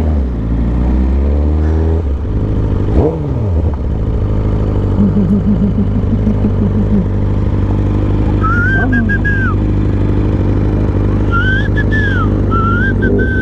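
Superbike engine running at speed in a steady drone, with the pitch dropping and climbing again about three seconds in as the throttle changes. A high wavering whistle-like tone comes in twice in the second half.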